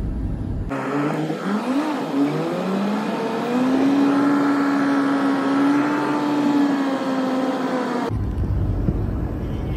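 Low rumble of a car ride, replaced about a second in by a dubbed-in, engine-like pitched whine that sweeps upward several times and then holds one slightly wavering note. It cuts off abruptly near the end, and the rumble returns.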